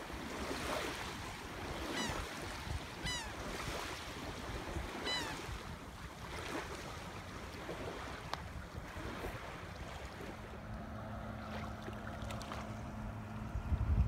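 Small waves washing on a sandy beach, with wind on the microphone. A bird gives three short calls in the first half, and a steady low motor hum comes in near the end.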